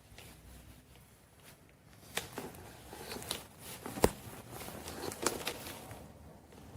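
Scattered light clicks and knocks over faint background noise, the sharpest a single knock about four seconds in.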